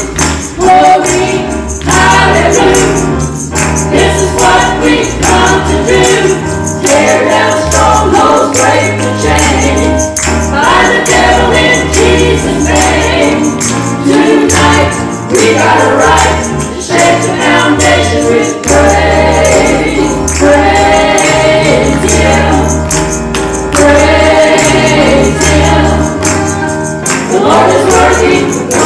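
A small group of women singing a gospel praise song together into microphones, over accompaniment with a steady bass line and tambourine-like percussion.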